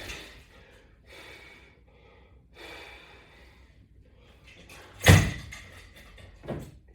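A person breathing hard in short, forceful exhalations while doing crunches, then a loud thump about five seconds in and a softer one a second and a half later.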